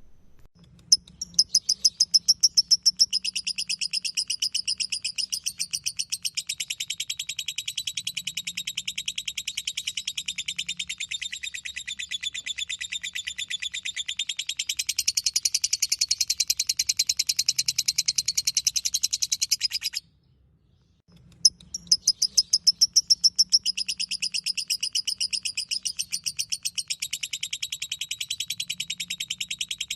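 Lovebird ngekek: a long, unbroken, rapid high-pitched chattering trill. It cuts off suddenly about two-thirds of the way through and starts again a second later.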